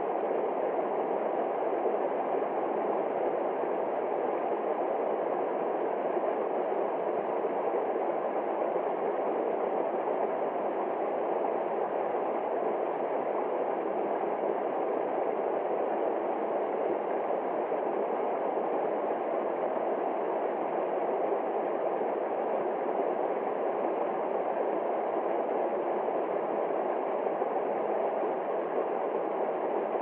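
Small waterfall cascading over rocks into a pool: a steady, unbroken rush of water.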